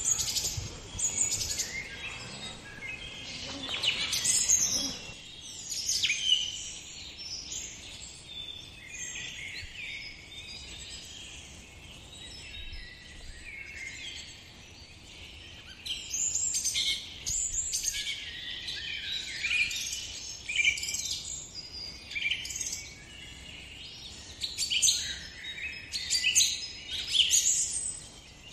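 Several songbirds chirping and singing in an overlapping chorus of quick, high calls, busier in the second half.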